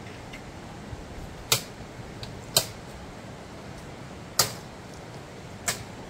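Steady rush of a shallow river running over small rapids, with four sharp clicks or knocks spaced irregularly through it.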